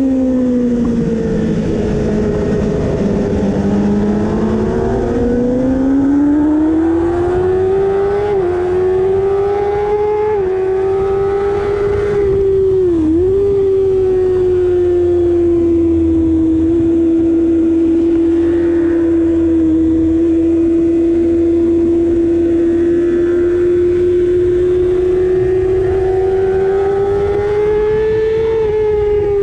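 Kawasaki ZX-6R 636 inline-four engine at high revs on track, heard from on board. The pitch drops in the first few seconds, climbs back, dips briefly about 13 seconds in, holds nearly steady for a long stretch, then falls near the end.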